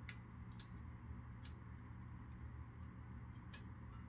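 A few faint, sharp metal clicks and ticks as a small sheet-metal patch gripped in locking pliers is shifted into place against the car's firewall, over a steady low hum.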